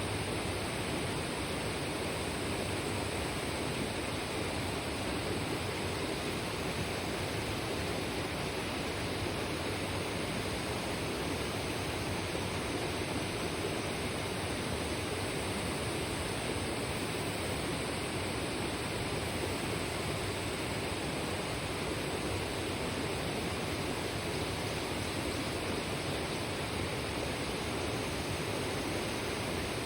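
Mountain river babbling over rocks, a steady rushing of water with no breaks or changes.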